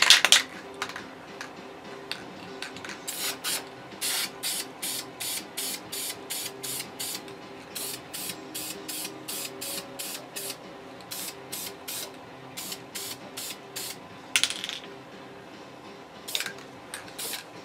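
Aerosol can of black spray paint hissing in a long run of short bursts, about two a second, then a few longer bursts near the end: dusting paint onto masked checkerboard squares.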